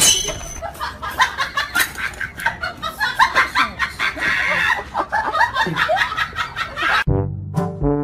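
A tabby cat calling in a rapid, irregular series of short sounds, its mouth held open. About seven seconds in, brass-led music cuts in.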